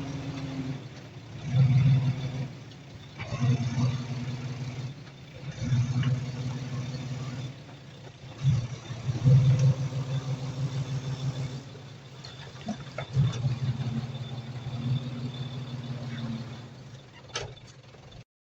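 Diesel engine of heavy earthmoving machinery running, its revs surging and easing again several times as it works, with a few sharp metallic clanks. The sound cuts off abruptly just before the end.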